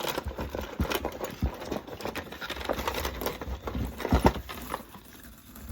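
Objects being handled and rummaged through in a box: irregular knocks, clatter and rustling, with a louder cluster of knocks about four seconds in.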